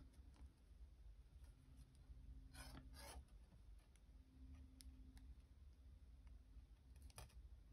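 Near silence, with faint scratches and clicks of thin 22-gauge wire being wrapped by hand around a wire cuff frame, and two brief rustles about three seconds in.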